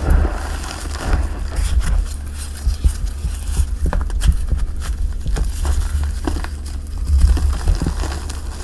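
Gym chalk and cornstarch crushed and crumbled in the hands, giving scattered crisp crackles over dull low thumps.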